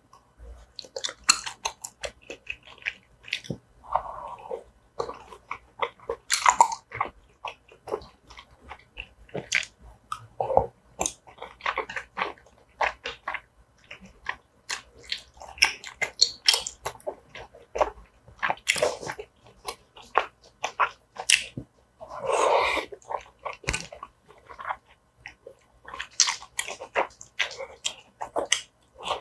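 Close-miked chewing and biting of tteokbokki rice cakes in sauce: a steady run of wet mouth clicks and smacks, with a few longer wet mouth sounds in between.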